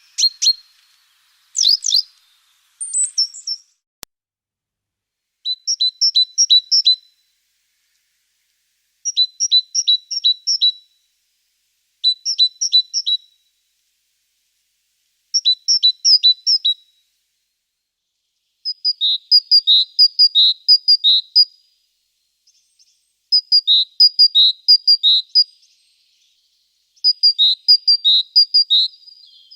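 A small songbird singing short phrases of four or five quick, high notes, repeated every few seconds. There are a few sharp calls near the start.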